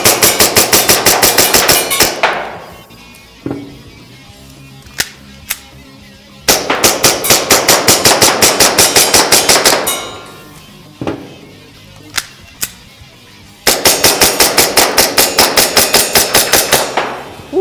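Tokyo Marui Detonics .45 gas blowback airsoft pistol fired rapidly in three strings of shots, about seven a second, each string ringing off briefly. A few single sharp knocks fall between the strings.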